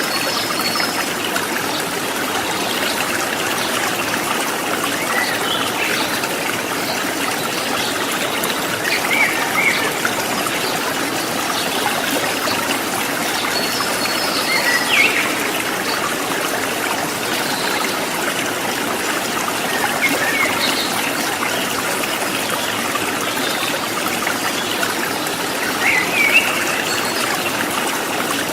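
Rocky river water running and splashing over stones with a steady rushing burble. Birds give short high chirps a handful of times, spaced a few seconds apart.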